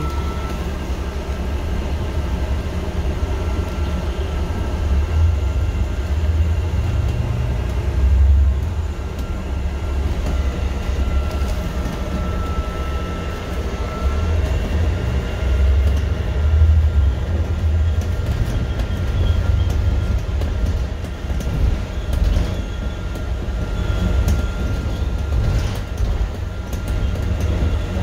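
Ride noise inside a moving bus: a steady deep rumble from engine and road that swells and eases, with a faint high whine coming and going.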